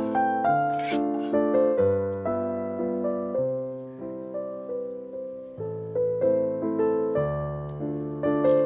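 Background solo piano music: a slow melody of struck notes that ring and fade, over held bass notes.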